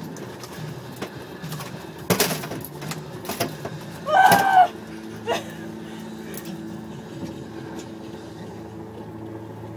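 A boat engine running with a steady low hum, under scattered clicks and a loud knock about two seconds in as hooks, lures and net are handled around a striped bass. A short vocal exclamation comes about four seconds in.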